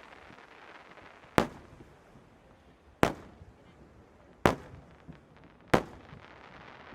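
Aerial firework shells bursting: four sharp booms about a second and a half apart, each trailing off in a short echoing rumble.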